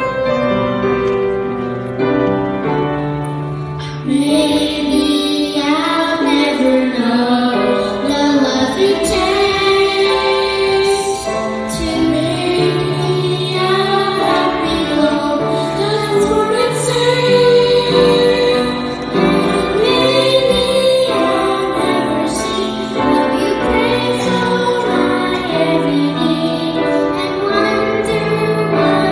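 Background music: a song with a female voice singing over keyboard accompaniment, the voice coming in about four seconds in.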